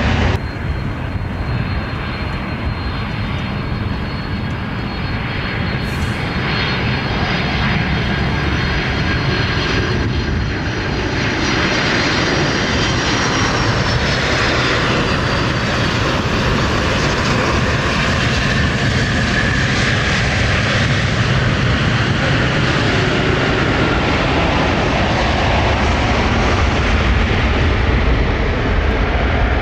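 Aircraft engines running loudly as a plane passes: a steady heavy rumble and rush with a thin high whine that slowly falls in pitch.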